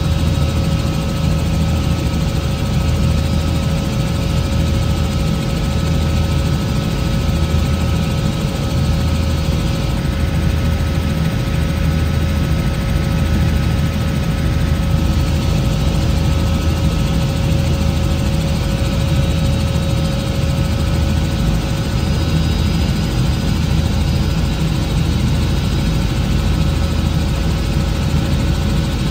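Helicopter rotor and engine running steadily in flight, heard from inside the cockpit: a loud low drone that swells and fades slowly and evenly, with a steady whine above it.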